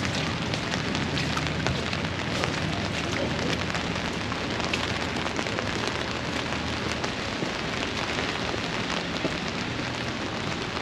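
Steady rain falling on wet pavement and puddles: a constant hiss dotted with many separate drop ticks. A low hum underneath stops about seven seconds in.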